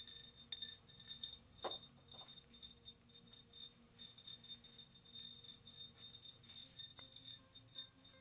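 Faint, light clinking and tapping of fingers and nails on a glass votive candle holder as it is handled, a few small scattered ticks.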